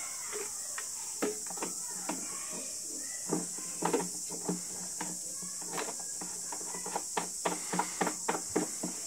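Light knocks and clicks of metal and wooden parts being handled and fitted as a treadle potter's wheel is reassembled, scattered at first and coming in quick succession near the end.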